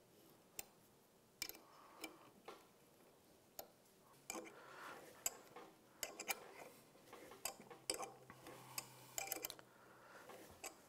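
A Time-Sert thread tap being turned by hand into a drilled hole in an engine case, cutting new threads: faint, irregular metal clicks and short scrapes, busiest about four seconds in and again near the end.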